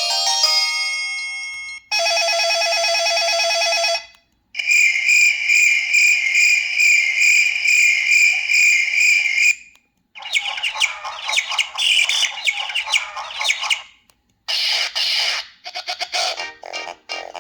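LG C1500S mobile phone playing its preloaded ringtones one after another through its small speaker, each cut off after a few seconds with a short silence between them. After the end of a mallet-like melody comes a steady buzzy tone, then a long warbling, chirp-like trill. A rapid rattling pattern follows, and near the end a new melody starts.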